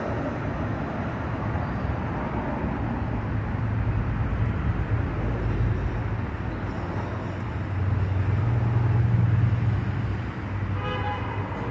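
Outdoor road-traffic rumble with a vehicle passing, loudest a little after halfway. A short pitched toot comes near the end.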